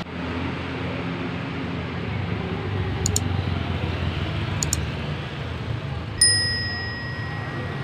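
A single bright, bell-like ding strikes about six seconds in and rings away over a second and a half, after two pairs of short high clicks, over a steady low rumble of roadside noise.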